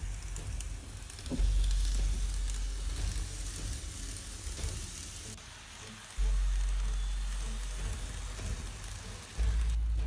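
N-gauge model trains running on the layout's track: a steady crackly rattle of small wheels and motor, with a low rumble that jumps up suddenly three times and fades between.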